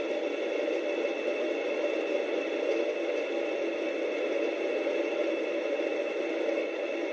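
Home atta chakki (electric stone flour mill) running steadily while grinding wheat fed from its steel hopper: an even whirring hiss with several held tones, unchanging throughout.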